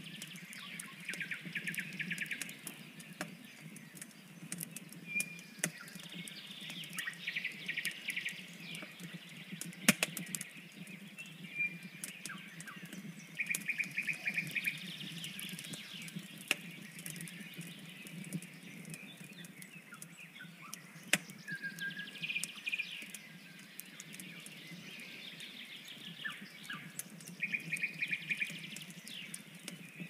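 Wood fire crackling, with scattered sharp pops; the loudest come about a third of the way in and again about two-thirds in. Birds call over it every few seconds in short, rapid trills.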